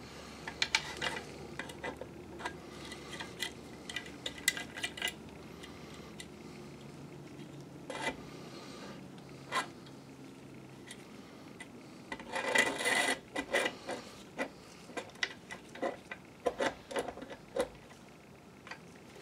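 Handling noise from a digital microscope's plastic monitor and camera head being fitted into the metal holder ring of its stand: scattered clicks, taps and rubbing of plastic on metal, with a denser spell of rubbing and clicking about two-thirds of the way through.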